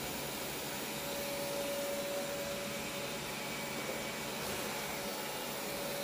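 Roborock S6 robot vacuum running: a steady whir of its suction fan and brushes, with a steady whine that comes in about a second in.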